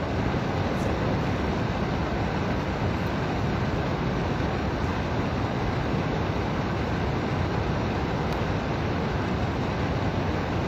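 Steady, even noise like a loud hiss with a low rumble, holding at one level with no pitch or rhythm.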